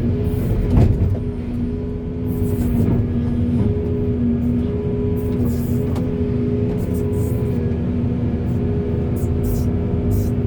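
Backhoe's diesel engine running steadily under load, with a sharp knock about a second in.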